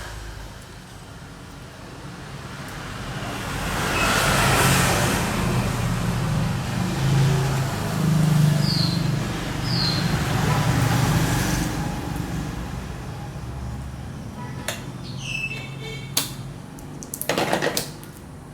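A motor vehicle passing close by: its engine hum and road noise swell over several seconds and then fade, with a few sharp clicks and rattles near the end.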